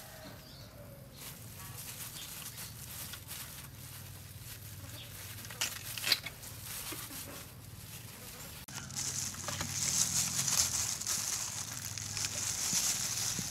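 Hands in thin plastic gloves handling food, with a few light knocks about six seconds in. From about nine seconds on, the plastic gloves crinkle steadily as crisp fried fish is pulled apart.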